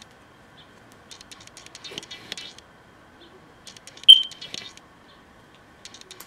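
Light clicks and rattles of small plastic makeup containers being handled and opened, in two short clusters, with one brief high-pitched chirp about four seconds in.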